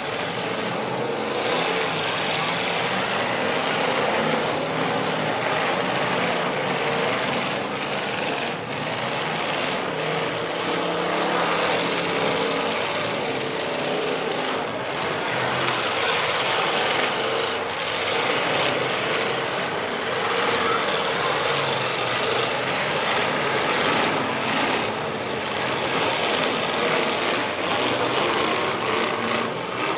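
Several demolition derby cars' engines running loudly, with a few sharp knocks as the cars collide.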